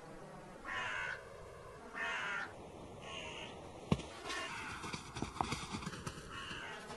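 Harsh, caw-like animal calls: two loud ones about a second apart near the start, then several fainter ones. A few sharp knocks come in the second half.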